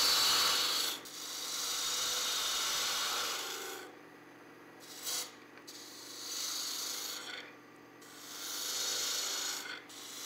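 A spinning wooden blank on a wood lathe being cut with a 5/8-inch bowl gouge: the shaving noise of the tool peeling wood comes in about four passes, dropping away in short gaps between them, over the lathe's steady hum.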